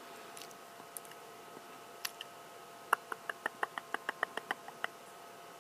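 Mouth clicks made while concentrating: a few scattered clicks, then about halfway through a quick run of about a dozen short clicks, roughly six a second.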